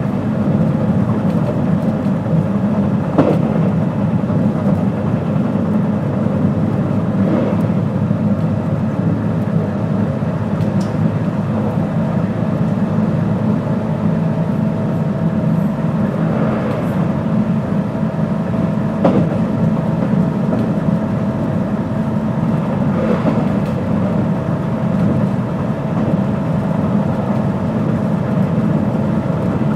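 Running sound inside a JR West 221 series electric train moving at steady speed: a constant rumble of wheels on rail with a faint steady whine, and a few sharp clicks from the wheels over the track.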